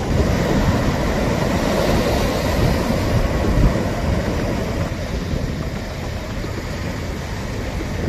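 Heavy typhoon swell breaking on a rocky shore: a continuous rumbling wash of surf, with wind on the microphone. It eases a little after about four seconds.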